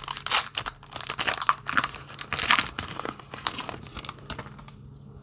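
Foil booster pack wrapper being torn open and crinkled in the hands, a dense run of crackles that dies away about four seconds in.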